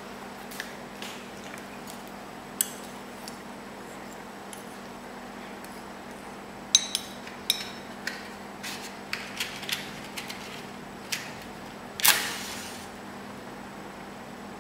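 Small clicks and knocks of a plastic dropper bottle and a matchbox being handled on a tabletop, then a match struck on the box about twelve seconds in, a sudden scrape that flares with a hiss fading over under a second.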